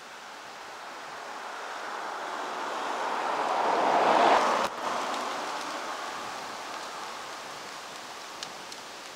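A vehicle passing on the road, its tyre noise swelling to a loud peak about four seconds in, breaking off suddenly, then fading to a low hiss, with two faint clicks near the end.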